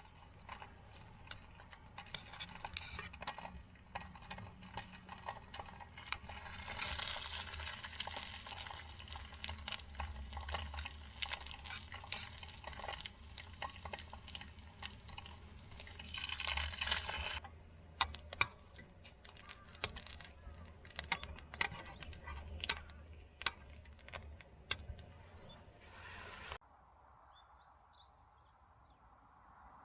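Wood fire crackling and popping in a fire stand: many irregular sharp snaps over a low steady hum, with two brief hissing rushes. The sound drops off abruptly near the end.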